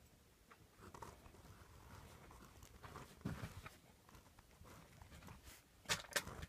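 Two ballpoint pens scratching faint, irregular strokes on paper as both hands write at once, with two sharp clicks close together about six seconds in.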